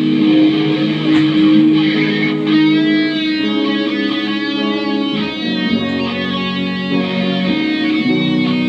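Electric guitar playing an instrumental passage of a slow rock ballad: long held lead notes that waver, over strummed guitar chords.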